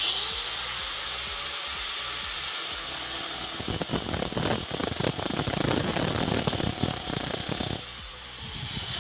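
Small cutting machine starting up with a high whine, then grinding into a stone with its wood-cutting blade from about three and a half seconds in, a rough, scratchy cutting sound that eases off near the end.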